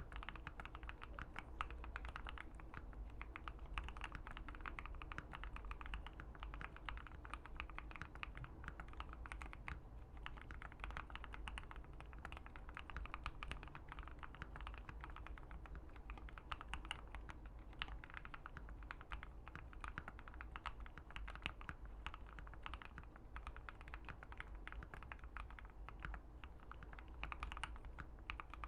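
Typing on a Keychron Q1 mechanical keyboard with an FR4 plate and Banana Split linear switches: a continuous run of keystroke clacks.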